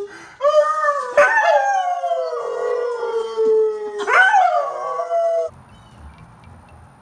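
Dog howling: a long drawn-out howl that slowly falls in pitch, then a shorter howl that rises and falls, cut off suddenly after about five seconds.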